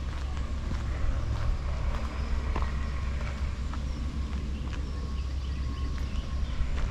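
Footsteps on a gravel footpath over a low, steady rumble, with scattered small bird calls.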